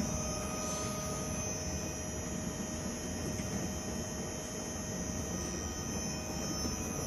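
Planetary mixer's low-speed drive, an explosion-proof electric motor with a hard-tooth gear reducer, running steadily at full revolution speed. It makes an even hum with a thin steady whine.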